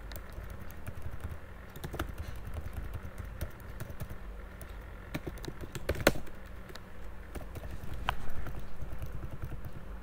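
Typing on a computer keyboard: irregular key presses, with one sharper keystroke about six seconds in and a quicker run of keys around eight seconds.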